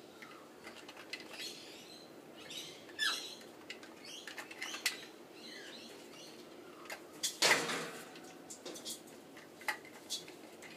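Sun conure's beak clicking, tapping and scraping at a clear plastic drawer foraging toy filled with pellets, in small irregular clicks and rustles, with a louder clatter about seven and a half seconds in.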